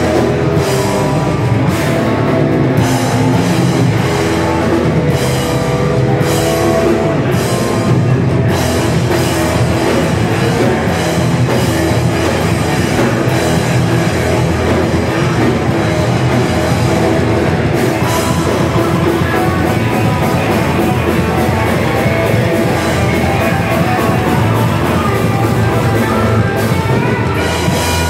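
A hardcore band playing live and loud without a break: distorted electric guitars over a driving drum kit.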